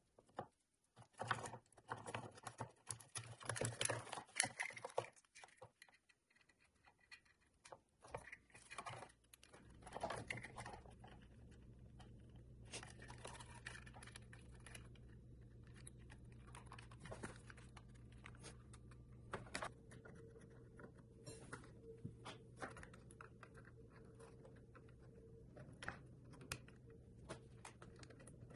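Faint, scattered clicks, taps and clunks of hand work on a wooden and metal machine frame, with a faint steady low hum setting in after a few seconds.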